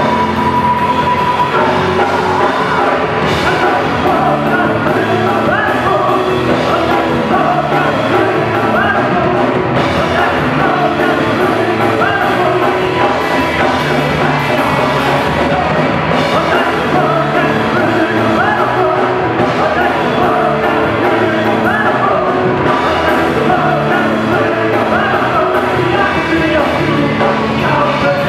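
Live rock band playing: electric guitars, bass, keyboard and drums, with a male lead singer singing over them.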